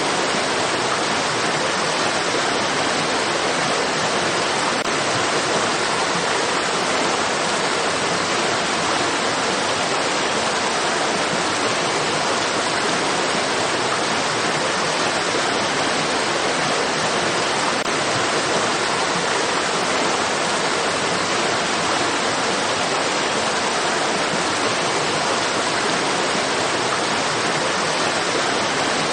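Steady rushing of stream water: an even, unbroken hiss with no separate splashes or changes.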